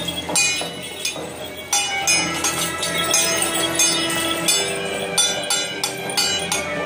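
Temple-procession percussion: metal cymbals and gongs clanging in quick, uneven strikes, each leaving a long metallic ring, accompanying a Ba Jia Jiang performance.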